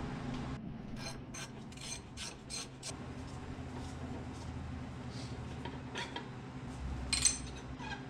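Hand ratchet clicking while a socket on a makeshift hex tool unscrews a motorcycle's threaded front axle from the fork. A quick run of clicks, about four a second, starts a second in; then come scattered clicks and one sharper metallic clack near the end, over a steady low hum.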